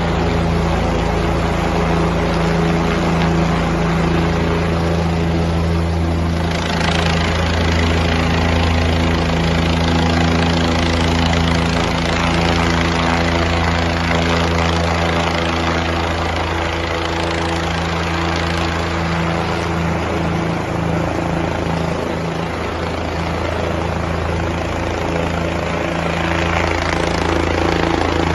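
Helicopter flying close by, its rotor and engine running steadily and loud.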